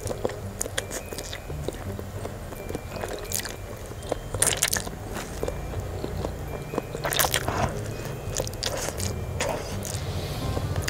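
A person slurping and chewing a mouthful of instant noodles eaten with chopsticks: a run of short wet slurps and chews, with two longer, louder slurps about four and a half and seven seconds in.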